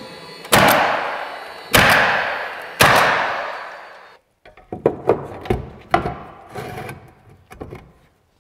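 A DeWalt coil roofing nailer fires three nails through manufactured stone veneer, about a second apart. Each shot is a sharp bang with a long ringing echo. From about halfway through come lighter knocks and clatter.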